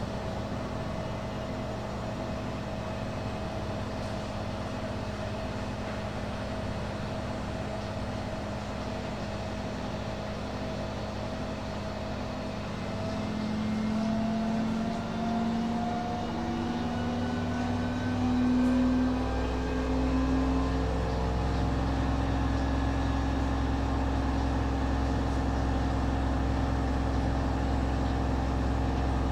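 Schulthess washing machine running with a steady motor whine, then rising in pitch from about halfway through and settling at a higher steady speed with a stronger low hum: the drum speeding up into a spin.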